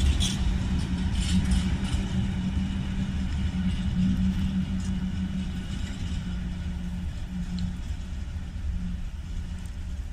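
Freight train of loaded tank wagons rolling past on the track, a steady low rumble and hum with wheels clicking over rail joints in the first couple of seconds. The sound slowly fades as the last wagons move away.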